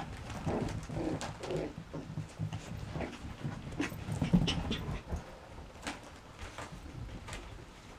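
Yorkshire Terrier puppies, eight weeks old, scuffling in and around a fabric play tunnel: rustling nylon and scrabbling, with small puppy whines and panting. A louder scuffle a little after halfway.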